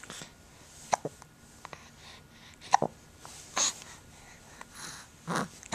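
A child hiccuping: a series of short, sharp hiccups at irregular gaps of about one to two seconds.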